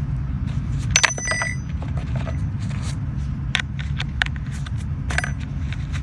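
Small metal clicks and clinks of a hand tool working on a mini battery chainsaw's bar and chain tensioner, with one ringing metallic clink about a second in, while a loosened chain is being tightened. A steady low rumble lies underneath.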